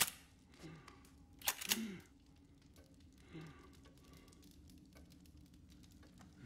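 Two sharp clicks about a second and a half apart, with a few faint short low sounds between and after them, in a quiet small room.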